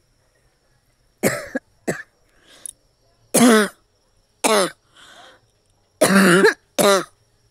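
A woman coughing hard, about eight separate coughs in short bursts, two of them fainter, several with a falling rasp of voice in them.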